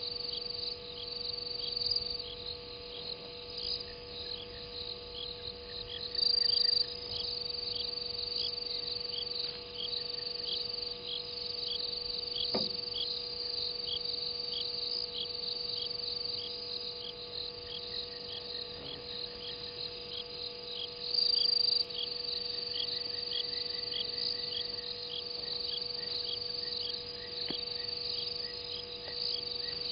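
Night chorus of crickets and other insects: a steady high trill with a regular chirping pulse a few times a second underneath, the trill swelling louder twice for about a second. A steady low hum runs beneath.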